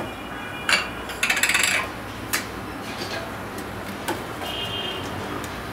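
Steel plate and spoon clinking and scraping against a steel cooking pot as chopped vegetables are pushed into boiling water and stirred: a short clatter about a second in, then scattered single clinks.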